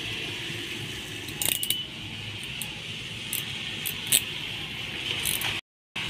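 Sharp metallic clicks and snips from a hand RJ45 crimping tool cutting network cable and being handled: a quick cluster about one and a half seconds in, then single clicks spread through the rest, over steady background hiss.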